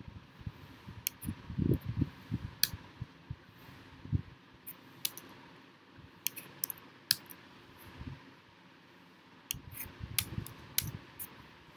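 Computer keyboard keys clicking in scattered single presses as a line of code is edited, with soft low thumps in between.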